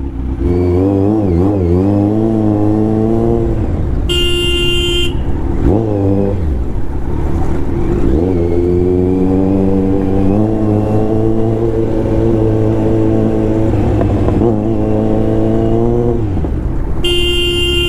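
Kawasaki Z900's inline-four engine running on the move, its pitch rising and falling with the throttle. A horn honks for about a second, four seconds in, and again near the end.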